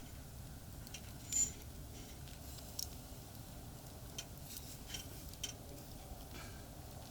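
Scattered light clicks and ticks at a small cooking campfire, with one sharper clink about one and a half seconds in, over a steady low rumble of traffic from a nearby expressway.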